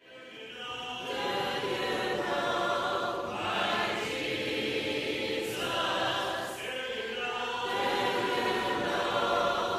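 Unaccompanied choir of mixed voices singing a hymn in sustained, held chords, fading in over the first second.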